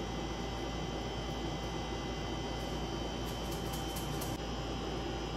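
Steady electrical hum with hiss, carrying a few thin steady tones, with a few faint ticks about three to four seconds in.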